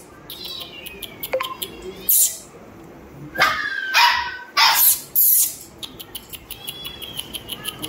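Doberman puppies barking, with a cluster of short sharp barks in the middle and thin high whines before and after.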